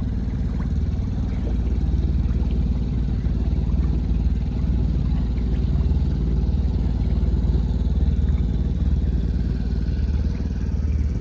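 A boat's engine running steadily at an even pace, a low, unbroken drone.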